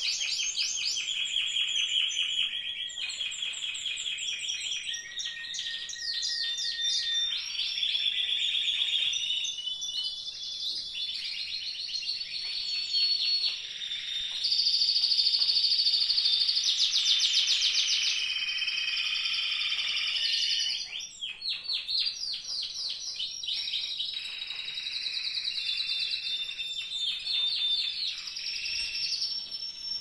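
Spanish timbrado canaries singing without a break: rolling trills of fast repeated notes, glides and clear held whistles. The loudest part is a stretch of long held notes about halfway through.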